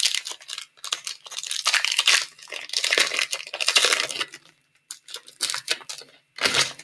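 Shiny trading-card pack wrapper torn open and crinkled by hand: a run of crackling, rustling tears, then a few shorter separate rustles near the end as the cards come out.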